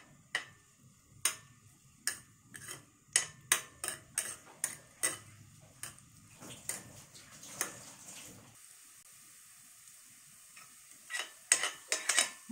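Stainless steel spatula tapping and scraping against a stainless steel pan as garlic is stirred in a little oil, with a faint sizzle. The sharp, irregular taps come thickly over the first eight seconds, pause, then return in a quick cluster near the end.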